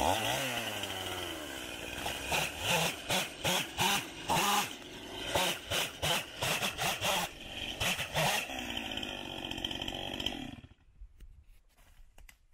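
Stihl two-stroke chainsaw cutting through a fallen log. The engine is revved up and down in pulses about twice a second, then runs more steadily and goes quiet near the end.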